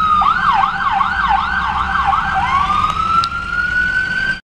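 Ambulance siren heard from inside a car. A slow wail switches early to a fast up-and-down yelp of about three sweeps a second, then swings back into a slow rising wail, and cuts off suddenly near the end.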